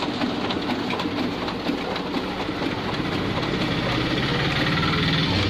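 Canon Advance 6265/6065 copier running a copy job: its automatic document feeder pulls originals through and paper feeds out with a rapid, continuous clatter of clicks. A low mechanical hum grows stronger about three seconds in.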